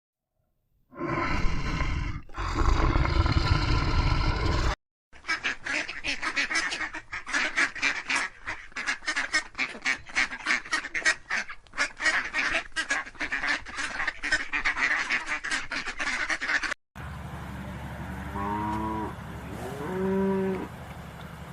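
A flock of waterfowl calling all at once, a dense run of quacks and honks, lasting about twelve seconds. It comes between a short, loud, noisy animal sound at the start and a quieter clip near the end with a few low, drawn-out calls.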